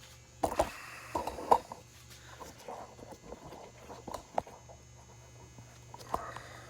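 Hand tools working the motorcycle's exhaust bracket bolts: metal clinks and knocks of a wrench and bolts. The loudest knocks come about half a second and a second and a half in, followed by lighter scattered clicks over a steady low electrical hum.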